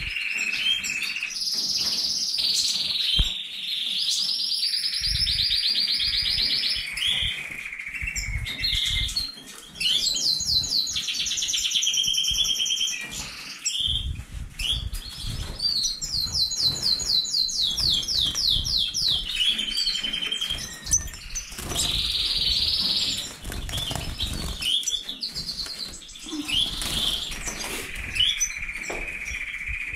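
Several caged finches singing together: a near-continuous stream of high twittering, sliding whistles and fast rattling trills, with low handling bumps underneath.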